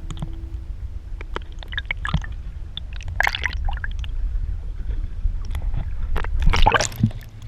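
Water sloshing and splashing irregularly against a boat, over a steady low wind rumble on the microphone. The loudest splashing comes near the end.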